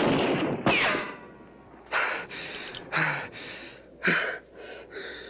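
A man gasping and breathing hard in a string of short, uneven breaths, after two sudden loud sounds at the very start.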